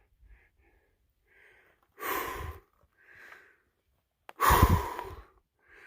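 A person breathing hard after a steep climb at high altitude: two loud, rough exhales about two and a half seconds apart, with quieter breaths between them.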